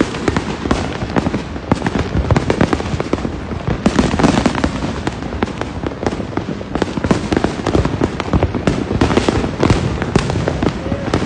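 Many fireworks and firecrackers going off at once: a dense, continuous crackle of pops and bangs with no pause.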